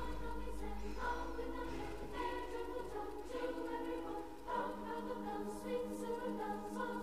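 Background music: a choir singing a Christmas carol over held notes.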